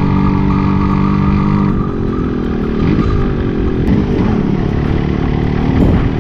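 Motorcycle engine running while being ridden, with a steady note for the first two seconds. Then the sound turns rougher as the engine pitch rises and falls.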